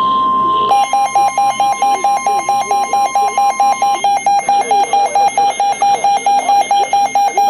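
NOAA Weather Radio warning alarm: the steady 1050 Hz alert tone sounds, and a weather alert radio's electronic alarm starts beeping over it, at about four beeps a second. The steady tone stops about halfway through, and the beeping carries on. The tone and alarm signal that a new weather warning is about to be broadcast.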